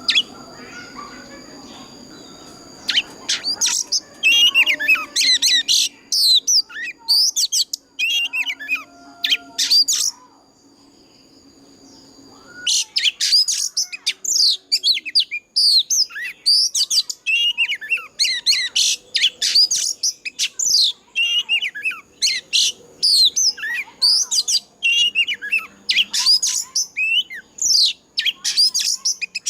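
Oriental magpie-robin singing a fast, varied song of rapid whistles, sweeps and chirps: in bursts at first, then after a short pause about ten seconds in, a dense unbroken run of song.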